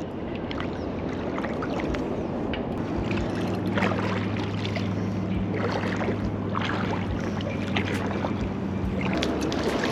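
Wind on the microphone and shallow water splashing as a hooked tailor is played in close on light tackle. A steady low hum sets in about three seconds in and stops shortly before the end.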